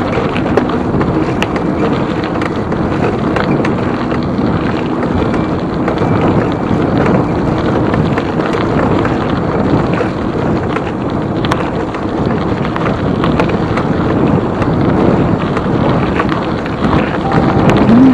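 Wind buffeting the microphone of a camera on a moving mountain bike: a loud, steady rushing noise, with scattered small clicks and rattles from the bike over rough ground.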